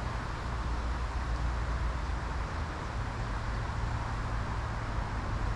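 Wind buffeting the microphone as a steady low rumble, over the rush of flowing river water.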